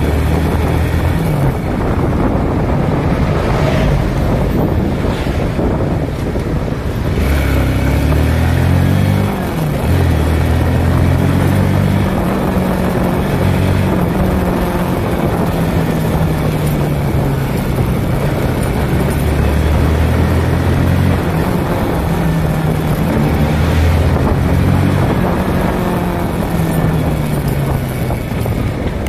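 Motorcycle engine heard from on board while riding, its note rising and falling several times as the throttle opens and eases off, with wind rushing over the microphone.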